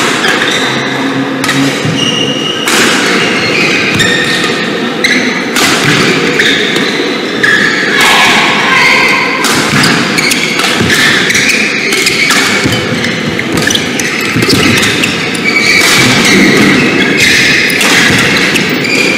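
Badminton rally: repeated sharp racket strikes on the shuttlecock, mixed with players' footfalls and lunges on the court mat.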